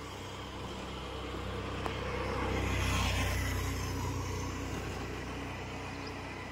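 A motor vehicle drives past: the engine rumble and tyre hiss grow louder to a peak about three seconds in, then fade away.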